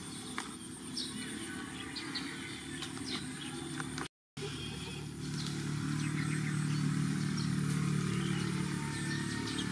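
A motor engine hums steadily in the background and grows louder from about five seconds in, with short high chirps scattered over it.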